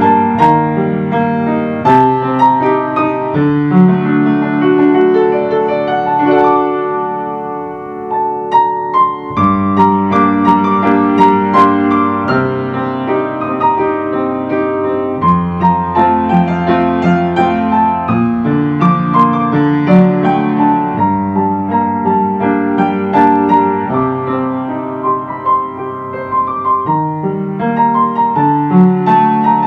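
Mellow, slow piano music: sustained chords over a low bass line, changing every few seconds, with a brief dip about eight seconds in.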